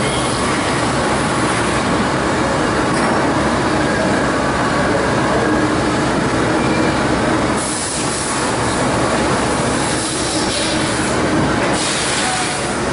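Okuma MACTURN 30 CNC turning centre running, a steady dense mechanical noise with two brief hissing surges, about eight and twelve seconds in.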